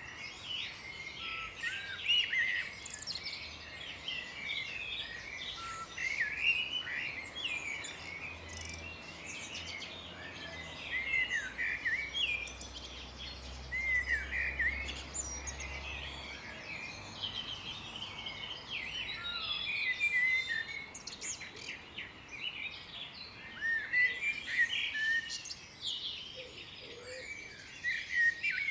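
A chorus of songbirds singing and chirping together, with many short, overlapping calls that glide up and down in pitch.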